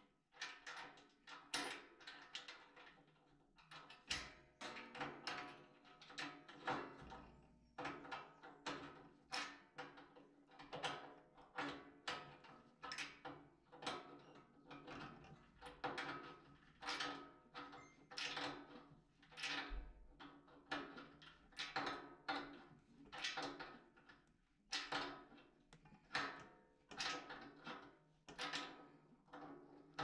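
A wrench worked on a PTFE-taped radiator valve tail, making a steady run of short knocks, a little over one a second.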